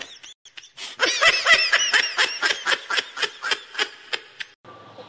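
A person laughing on a phone call: a fit of short, rapid giggling pulses, about four or five a second, that dies away near the end.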